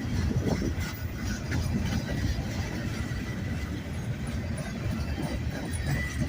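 Freight train cars rolling past on the rails, a steady low rumble with a faint thin wheel squeal above it, with cold wind buffeting the microphone.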